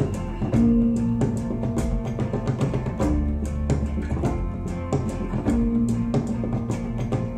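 Recorded music played through Kaiser Acoustics Chiara hi-fi loudspeakers: an instrumental passage with a guitar and a steady run of drum hits, no vocals.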